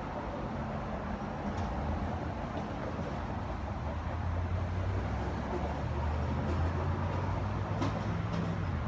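A steady low rumble that grows louder about halfway through.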